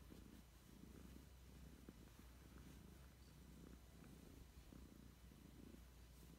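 A tabby cat purring faintly while being stroked, the low rumble swelling and fading in a steady rhythm with its breathing.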